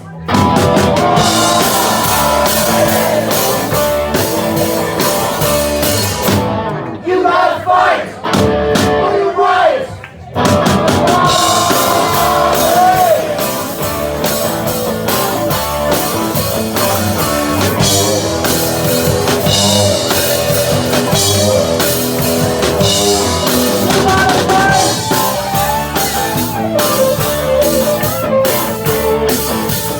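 Live rock band playing with drum kit and other instruments. The band thins out and breaks off briefly about seven seconds in, then the full band comes back in about ten seconds in.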